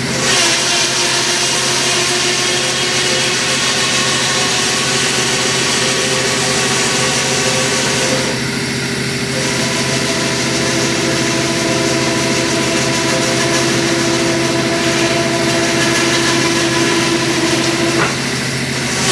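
A 12-volt electric winch motor runs under load, working the dump trailer's lift. It pauses briefly about eight seconds in, then runs again with a changed pitch. A steady low hum runs underneath.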